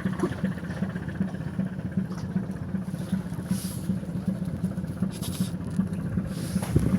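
Boat engine running steadily with an even low hum, with a brief hiss twice in the middle.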